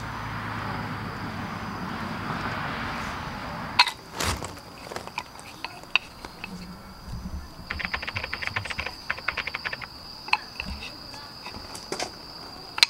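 Wooden dowel legs of a camp burner stand being handled, clicking and knocking against each other, with two sharp knocks about four seconds in. Rustling handling noise comes first, and a run of fast light ticks follows later.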